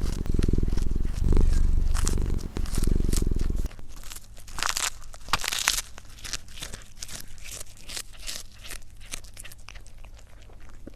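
Added kitchen sound effects: a low bubbling, boiling noise that cuts off abruptly about four seconds in, followed by quieter, scattered crackling and crinkling noises.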